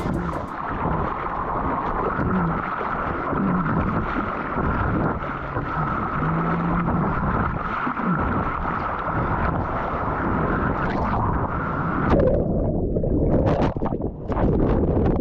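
Jet ski running at speed, its steady engine and pump noise mixed with wind on the microphone; about twelve seconds in the engine note falls away and water splashes and sloshes.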